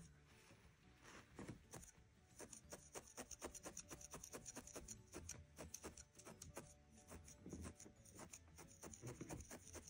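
Felting needle stabbing repeatedly into core wool on a wool felting mat, a faint, quick, even run of soft strokes, several a second, as the wool is felted into shape.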